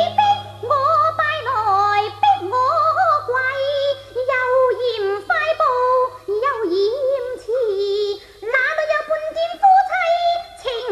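Cantonese opera singing: a voice sings a sliding, ornamented melody in short phrases over the accompanying instruments.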